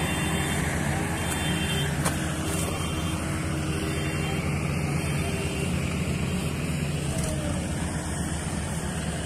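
Diesel farm machinery engine running steadily, a low even drone.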